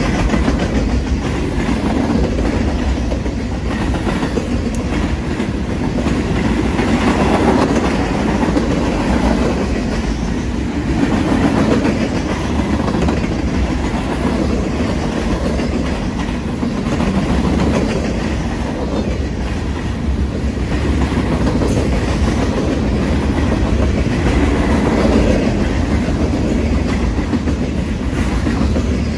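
Freight train rolling past at speed: a steady low rumble with the clickety-clack of steel wheels on the rails as a string of autorack cars goes by, swelling and easing slightly as the cars pass.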